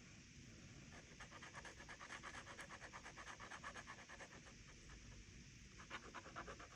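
Faint scratching of a metal dip pen nib on sketchbook paper, drawn in quick short strokes. The strokes run for a few seconds, then come again in a shorter burst near the end.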